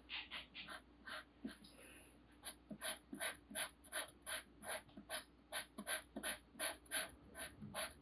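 Black felt-tip marker drawing quick short strokes on paper, a soft scratch with each stroke. The strokes come a few at a time at first, then settle into a steady run of about three or four a second.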